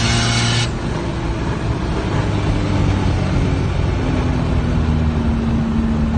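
Car engine and road noise heard from inside the cabin at speed. A loud, high-pitched engine note cuts off suddenly less than a second in, leaving a steadier, lower engine drone.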